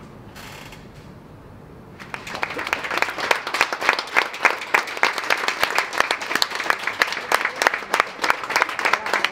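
Low background hum, then a small group of people start clapping about two seconds in and keep applauding.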